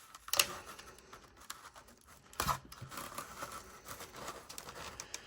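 Foil Pokémon booster pack wrappers crinkling and being torn open by hand, with two sharp rips about half a second and two and a half seconds in.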